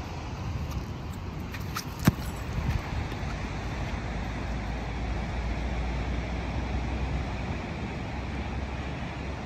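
Steady low rumble of wind on the microphone and distant road traffic, with one sharp knock about two seconds in.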